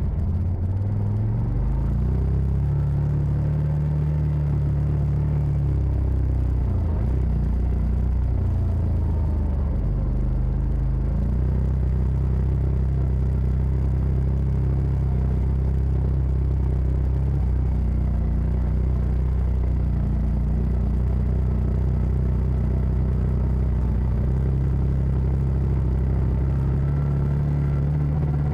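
CF Moto side-by-side engine running under way. Its pitch rises over the first couple of seconds, falls and climbs again a few times around the middle, then holds fairly steady.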